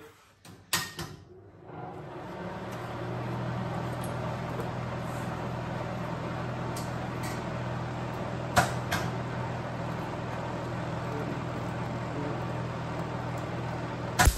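MIG welder switched on with a click, then its cooling fan and transformer humming steadily, with a couple of sharp clacks midway. Near the end the arc strikes with a sudden loud burst of crackling as welding on the car body panel begins.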